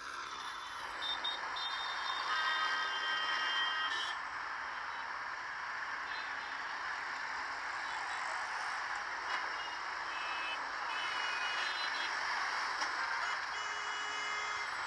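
Steady hubbub of road traffic and a crowd, with a high steady warning tone held for about two seconds a couple of seconds in.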